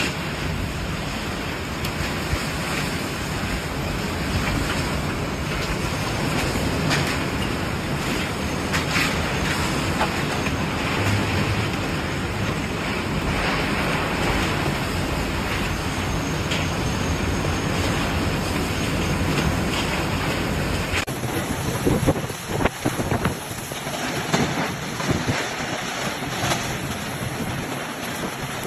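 Storm wind blowing hard across the microphone: a steady, loud rushing noise. About 21 seconds in it cuts abruptly to a gustier, more uneven rush of storm noise.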